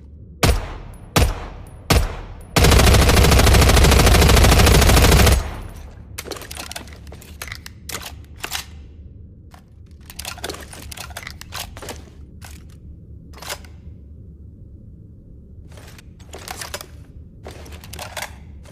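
Sound effect of a K&W MP6 submachine gun: three single shots, then a continuous burst of automatic fire lasting about three seconds. A series of short mechanical clicks and rattles follows.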